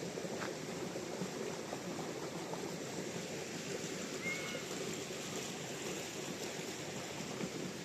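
Steady rush of flowing water, with a brief high chirp about four seconds in.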